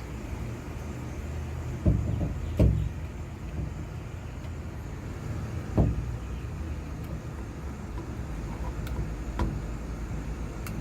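A few sharp knocks and clunks of metal lock parts being handled and fitted into a door, the loudest about two and three seconds in, over a steady low hum of an electric fan.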